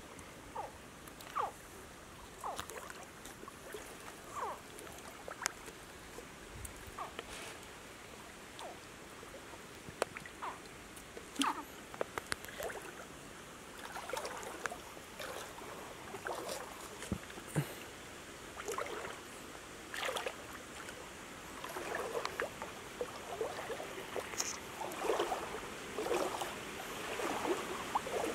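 Water splashing and trickling in a shallow stream: scattered small splashes at first, growing busier and more continuous from about halfway through.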